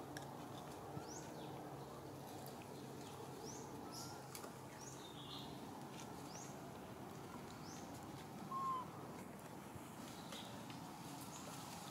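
Birds chirping in short, high notes that repeat about once a second over a faint steady background. One brief, lower call stands out a little over two-thirds of the way in.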